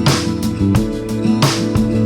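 Background music: plucked guitar over sustained notes, with a steady beat about every three-quarters of a second.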